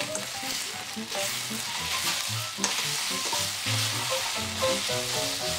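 Spaghetti and bacon sizzling in a hot nonstick frying pan while being tossed and stirred with tongs, with a steady frying hiss and light scraping of the tongs.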